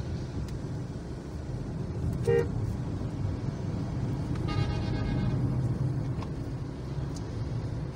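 Road traffic heard from inside a moving car: a steady low rumble of engine and tyres, with a short vehicle-horn toot a little after two seconds in and a longer, higher horn blast near the middle.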